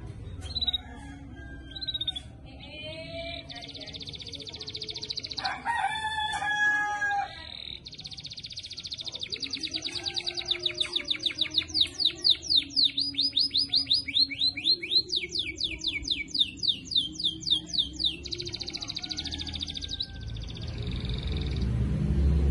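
Canary singing: scattered chirps, then long runs of fast repeated trill notes, some sweeping up and down. A rooster crows once about six seconds in.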